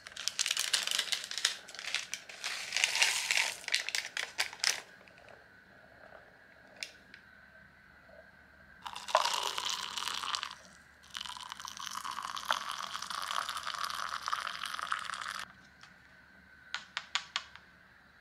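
Foil ingredient pouch of an instant cup miso soup being crinkled and opened, dense crackling for about five seconds. From about nine seconds in, water is poured into the paper soup cup: a steady pouring rush of several seconds with a short break. A few light clicks follow near the end.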